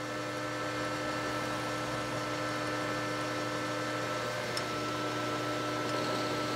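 Metal lathe running while a number 7 twist drill in the tailstock drills a tap-drill hole for a 1/4-20 thread into the end of a spinning A2 tool-steel bar. The lathe makes a steady hum with a few fixed tones.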